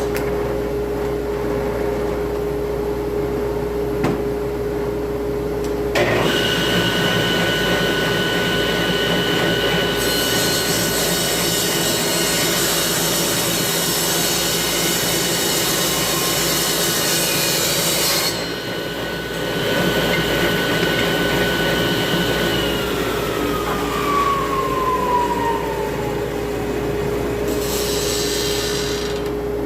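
A dust-collection vacuum hums steadily. About six seconds in a table saw starts up, and its blade rips through a wooden board for several seconds. The saw is then switched off, and its whine falls as the blade spins down, while the vacuum keeps running.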